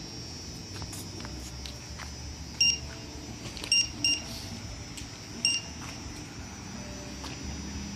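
Four short, high-pitched electronic beeps from the quadrotor's radio-control gear, spaced irregularly over a few seconds, against a faint steady high whine.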